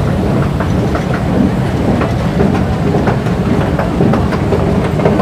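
Metro station escalator running: a steady low rumble with a stream of light clicks and clacks.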